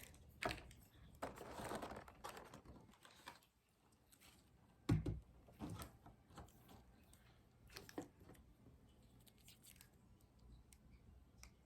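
Quiet handling of small plastic toy figures and their packaging: scattered light taps and rustling, with one louder knock about five seconds in.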